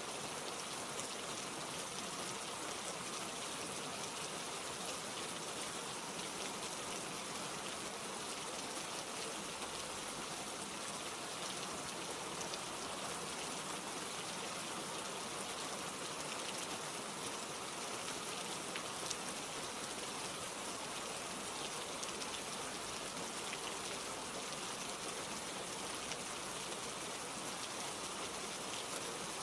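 Steady rainfall, an even hiss of rain with fine scattered drop patter.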